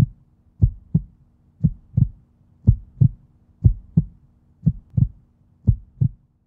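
Heartbeat sound effect: low double thumps, a pair about once a second, steady through the title cards.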